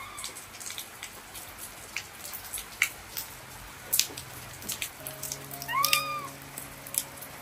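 A baby monkey gives one short coo, a pitch that rises and falls, about six seconds in, with a fainter call at the start. Rain drips tap irregularly throughout.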